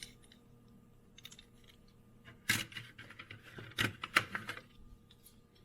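Small die-cast toy cars clicking and clattering against each other and their tray as they are handled: a flurry of light clicks in the middle.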